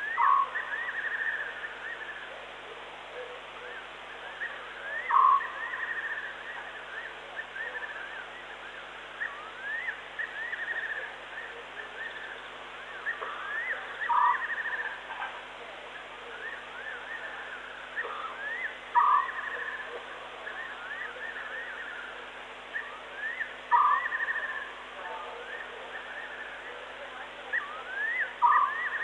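Night-time wild animal calls: a short call repeats roughly every five seconds, six times, over a continuous chorus of quicker, higher rising chirps.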